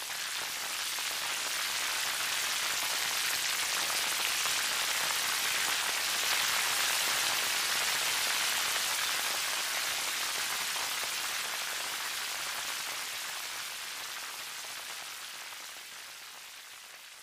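Corned beef frying in oil with garlic and onion in a pan, a steady sizzling hiss that builds over the first couple of seconds and fades away over the last few.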